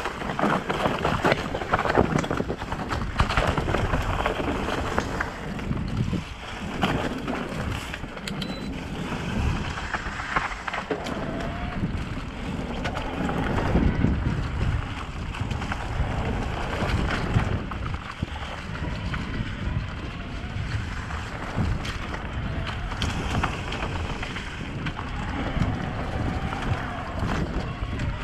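Mountain bike descending rocky dirt singletrack: tyres rumbling over stones and leaves, with the bike rattling over the bumps and wind buffeting the microphone.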